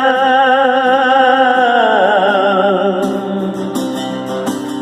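A song: a singer holds a long note with strong vibrato that slides downward, over acoustic guitar accompaniment. About three seconds in, the held voice gives way to steady accompaniment notes.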